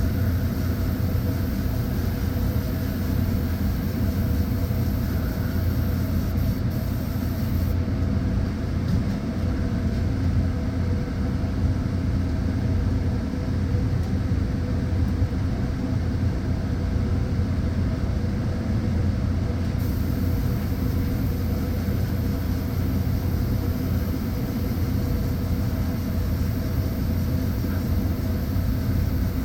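A steady low mechanical hum and rumble with a few constant tones, unchanging throughout, like a motor running continuously.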